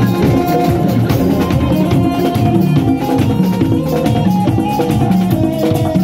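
Live drum kit and hand percussion jamming to a steady beat, with held pitched notes from another instrument underneath.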